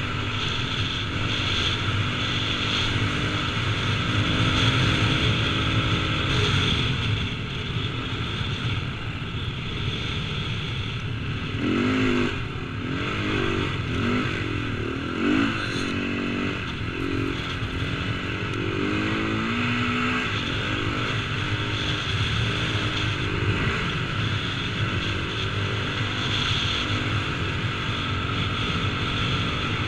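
KTM 450cc single-cylinder four-stroke motocross bike engine running under load across sand, heard from the rider's helmet. The revs hold fairly steady, then rise and fall quickly several times about halfway through before settling again.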